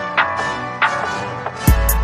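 Background music: sustained instrumental chords with a few sharp hits, then a beat with heavy bass and drums starts near the end.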